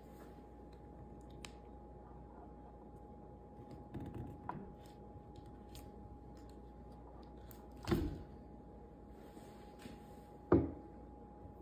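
Handling noise from a rifle being worked on at a workbench: a few dull knocks and thunks, the two loudest near the middle and toward the end, over a faint steady hum.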